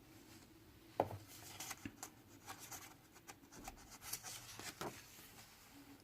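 Faint paper rustling and light handling taps from a picture book being handled as a page is turned, with one sharper tap about a second in.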